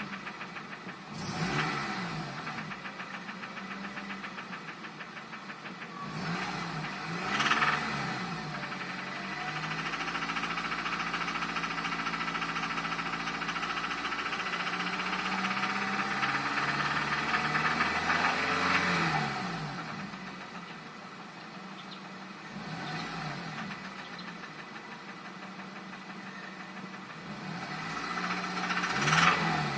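2002 Acura RSX Type S K20A2 2.0-litre four-cylinder engine running with a bad knock. It is blipped up and let fall back several times, with a longer held rev in the middle.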